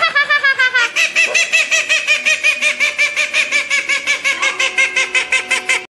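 White domestic duck quacking in a long, rapid, even run of about six quacks a second that sounds like laughter, cutting off abruptly at the end.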